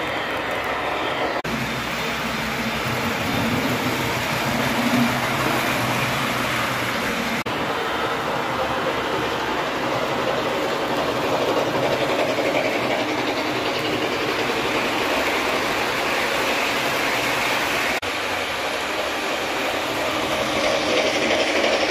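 S-gauge model train running around a layout: the steady whirring rumble of its wheels rolling on the rails, close to the track.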